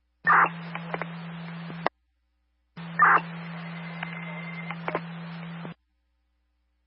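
Two-way radio heard through a scanner: two short key-ups about a second apart, with no words. Each opens with a brief loud burst, then carries a steady low hum and faint hiss, and is cut off sharply by the squelch.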